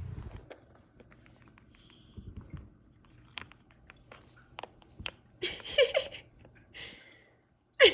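Scattered sharp clicks and taps as a parrot's beak works at a snail, then a person laughing in two loud bursts in the second half.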